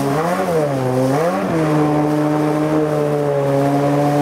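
Tohatsu M50D2S two-stroke outboard driving a water jet, running hard. Its pitch rises and falls twice in the first second and a half as the boat climbs through rapids, then holds steady.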